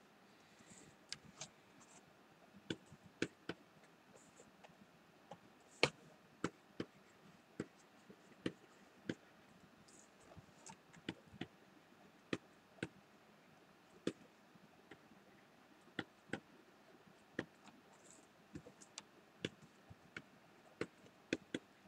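Quiet, irregular clicking, roughly one or two sharp clicks a second, from hands working a computer's controls over faint room tone.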